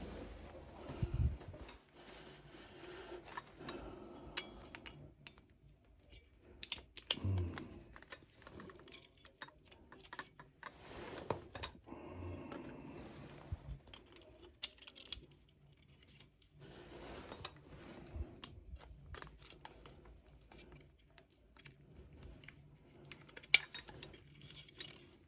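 Scattered light metallic clicks, clinks and knocks of tools and small parts being handled, with quiet gaps between them.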